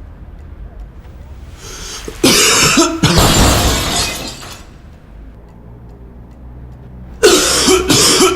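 A man coughing hard in two loud bouts: one starting about two seconds in and lasting about two seconds, and another starting near the end.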